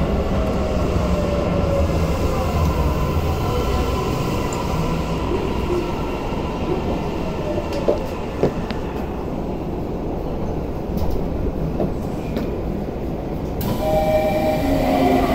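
Tokyu 5080 series subway train braking into a station, heard from inside the car: the inverter motor tones slide down in pitch over the rumble of wheels on rail, with two sharp clicks a little past the middle. Near the end the train has stopped and a new set of steady tones starts.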